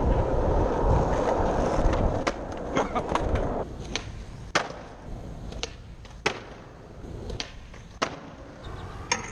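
Skateboard wheels rolling over rough asphalt, a steady rumble for about two seconds. Then sharp clacks of skateboards snapping and landing on concrete, about a dozen spaced out over the rest.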